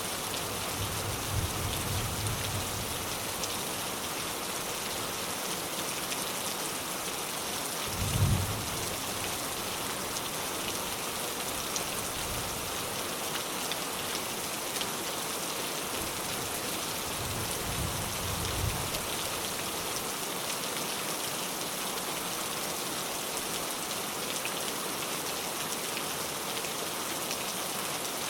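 Steady rain falling, a constant hiss with fine patter of drops. Brief low rumbles of distant thunder come through under it, most clearly about eight seconds in and again around eighteen seconds.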